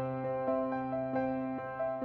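Soft background piano music, with new notes struck a few times a second and left to ring.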